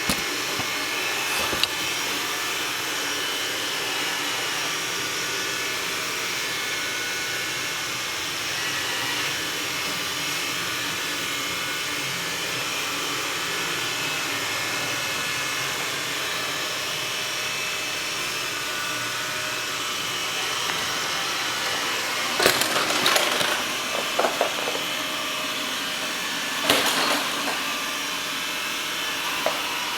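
Xiaomi Mi robot vacuum running steadily on hard floor, a constant whir of its suction fan and brushes. A few brief knocks and clatters come about three-quarters of the way through.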